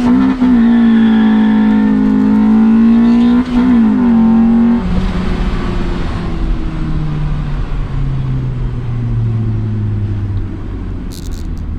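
Honda B20 VTEC four-cylinder engine held at high revs under load, with two brief dips in the note. About five seconds in it drops to a lower note that keeps falling as the car slows.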